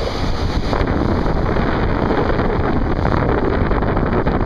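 Strong wind buffeting the microphone, a steady low rumbling noise, over the wash of surf breaking on the beach.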